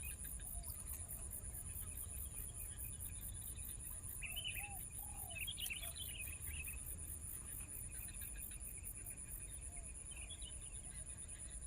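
A steady, high insect trill that pulses rapidly runs throughout. Over it, birds chirp in a flurry about four to seven seconds in, and again near the end.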